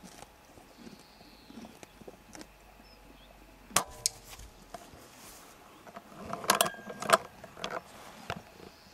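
Sharp metallic clicks and short rattles of handling at the air rifle and its scope-mounted camera: one click about four seconds in, then a quick cluster of clicks a couple of seconds later.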